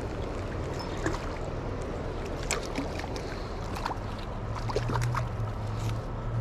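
Steady rush of the river with a low rumble under it, and a few scattered small clicks and ticks as the spinning rod and line are handled.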